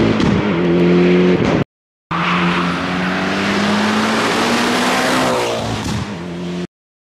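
Mitsubishi Lancer Evolution X's turbocharged four-cylinder engine pulling hard at full throttle, its note rising through the revs with a short dip at a gear change just after the start. After a brief cut, the car runs hard again, and its pitch falls near the end as it goes by.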